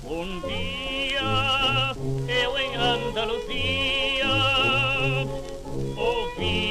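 Old 78 rpm record playing music: after a brief dip at the start, a high melody with wide vibrato runs over repeating bass notes, with the thin sound of an early recording that has no top end.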